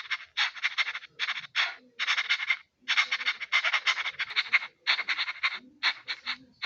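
Rasping, croak-like sound in short bursts of quick pulses, several a second, with brief pauses between the bursts.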